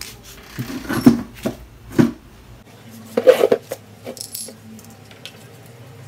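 Small metal clinks and knocks from a bicycle disc brake caliper and its mounting hardware being handled and fitted at the rear frame mount. The clicks are sharpest about a second in and again just after three seconds, then they thin out.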